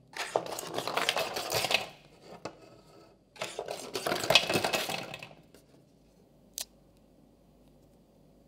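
Baked cheese langue de chat cookies tipped out of an aluminium cookie mould, clattering onto a plastic tray in two bursts of rattling, followed by a single sharp click.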